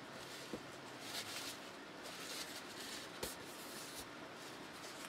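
Faint rubbing and rustling of paper being handled on a tabletop, a few soft swishes with a couple of light taps.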